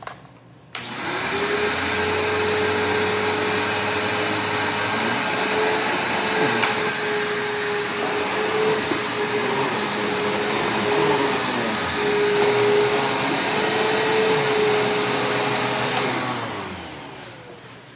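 Upright vacuum cleaner switched on with a click just under a second in, its motor running steadily with a constant whine. It is switched off near the end and winds down.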